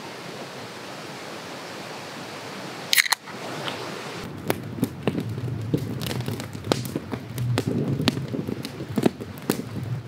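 Steady hiss of outdoor background noise, then about three seconds in a sharp pop with a short hiss: an aluminium drink can's pull-tab being cracked open. After it comes a run of irregular sharp snaps and crackles over a low rumble.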